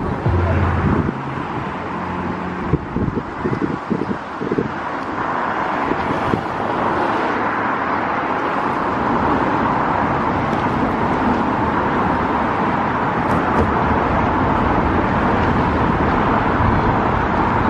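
Steady road traffic noise from passing cars, with a vehicle engine hum in the first second.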